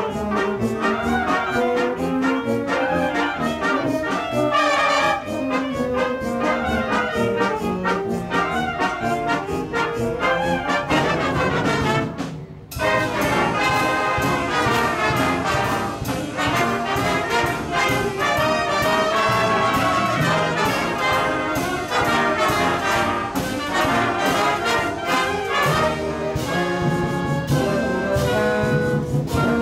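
Concert band playing a lively piece, brass to the fore over steady percussion. The band breaks off for an instant about halfway through, then comes straight back in.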